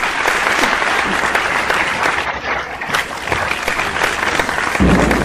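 Audience applauding, many hands clapping steadily. A low rumble comes in near the end.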